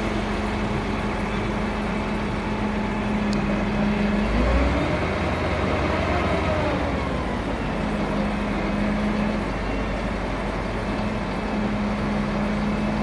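Engine of the borehole hoisting machinery running steadily. It revs up about four seconds in and drops back to its steady note by about seven and a half seconds, as the lift is worked.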